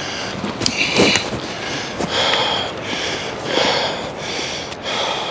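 A man breathing hard and fast while climbing a steep slope under a heavy pack, one noisy breath about every three-quarters of a second. A couple of sharp clicks sound about a second in.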